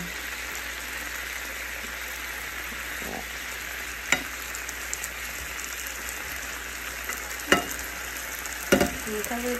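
Broccoli sizzling and steaming in a little water in a frying pan, a steady hiss. A spatula knocks sharply against the pan a few times, about four, seven and a half, and nine seconds in.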